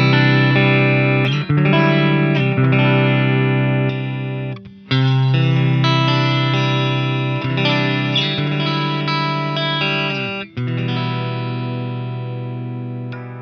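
Aria Pro II TS-400 Thor Sound electric guitar played through distortion: sustained chords with short breaks between them. The last chord is left to ring and slowly fade.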